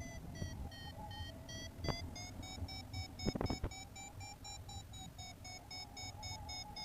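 Paraglider variometer beeping: a steady train of short beeps, about four a second, the pitch dipping and then rising a little, the sign of the glider climbing in lift. Wind rumble on the microphone underneath, with a few sharp clicks about two and three and a half seconds in.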